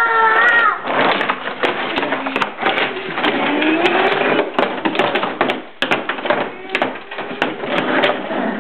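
Toy trains and plastic track pieces clattering and scraping in a plastic train table, a dense run of small knocks. A child's high voice sounds briefly at the start, and a child vocalizes briefly in the middle.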